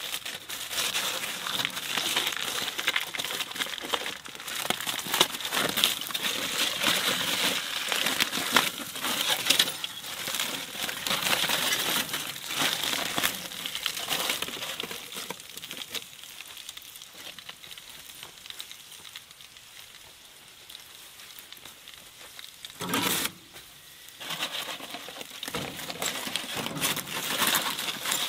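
Aluminium foil crinkling and crumpling as it is peeled open from a rack of grilled ribs, in dense crackly handling noise. It goes quieter for a few seconds past the middle, then comes a single brief louder sound late on, and the crinkling picks up again.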